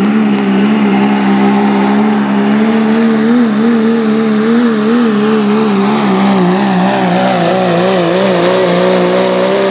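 Turbocharged diesel engine of a second-generation Dodge Ram pickup pulling a sled at full throttle under heavy load. It holds high revs at a nearly steady pitch that wobbles slightly several times a second.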